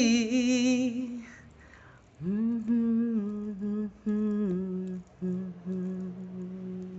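A solo voice holds the last sung word "free" with a wavering vibrato for about a second, then after a short pause hums a slow tune of held notes that step downward.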